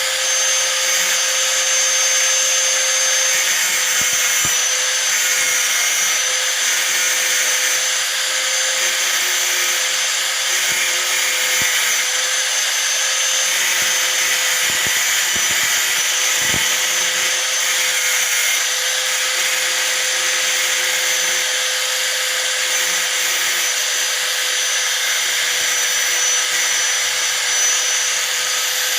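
Hand-held angle grinder running steadily, its disc grinding down a rusty steel nail.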